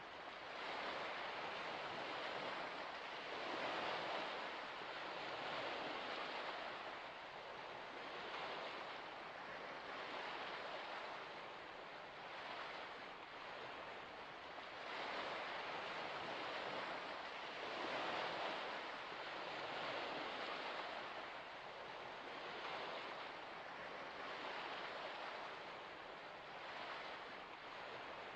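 Water waves washing in softly: a steady hiss that swells and fades every two to three seconds.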